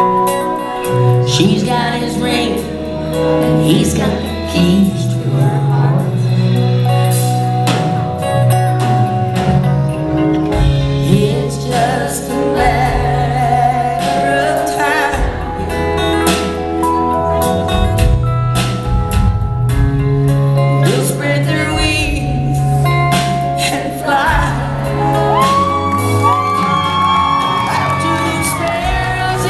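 Live country band playing, with a woman's singing voice at times.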